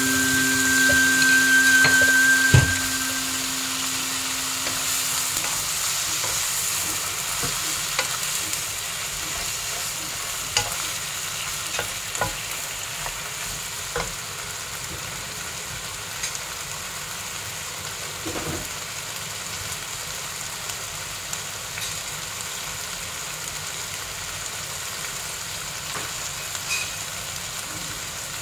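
Cabbage and bok choy sizzling as they stir-fry in a nonstick wok, with a wooden spatula now and then knocking against the pan. The sizzle grows gradually quieter.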